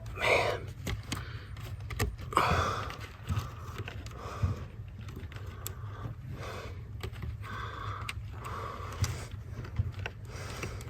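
Small plastic clicks and scraping of fingers working a blade fuse loose from the interior fuse box of a 2004-2008 Ford F-150, a fuse that is stuck and hard to pull.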